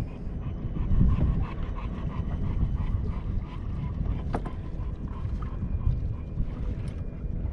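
A dog on a small boat making soft, quick, repeated sounds over steady wind rumble on the microphone and water moving around the hull, with a single sharp click a little past halfway.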